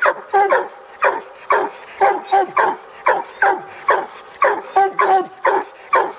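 Coonhounds barking over and over, about two loud barks a second.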